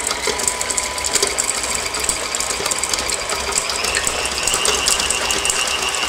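KitchenAid Heavy Duty stand mixer running, its paddle beating a stiff cream cheese dip in a stainless steel bowl. Steady motor and gear whine with a fast clattering rattle.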